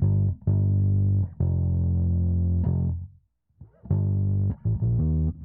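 Soloed bass guitar track playing back through DIY 500-series saturation modules turned up, a run of sustained notes with thick overtones that keeps plenty of bottom end. The notes stop briefly about three seconds in, then resume.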